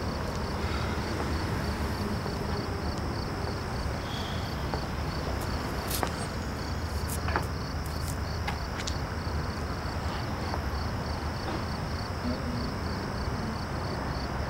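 Night street ambience: a steady low rumble with a high insect chirp repeating evenly about three times a second. A few faint clicks come about halfway through.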